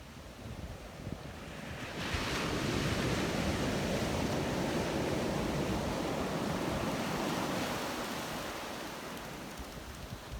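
Sea surf washing up the beach, swelling sharply about two seconds in and slowly dying away, with wind buffeting the microphone throughout.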